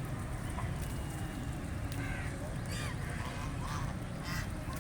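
Ducks calling, several short quacking calls in the second half, over a steady low background rumble.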